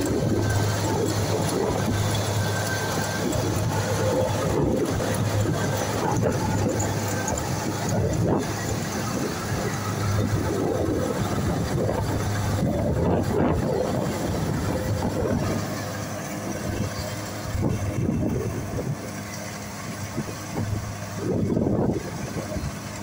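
Kubota tracked rice combine harvester running steadily while cutting and threshing paddy, its diesel engine giving a constant low hum under the clatter of the machinery. It grows somewhat quieter about two-thirds of the way through as it moves away.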